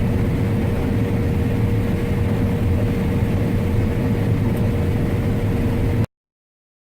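Combine harvester running steadily under load while harvesting corn: a constant low machine drone with a steady whine, cutting off abruptly to silence about six seconds in.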